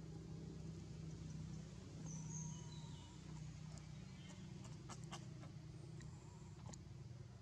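Faint outdoor ambience: a steady low hum with a few short, high chirps a couple of seconds in and a quick cluster of sharp clicks about five seconds in.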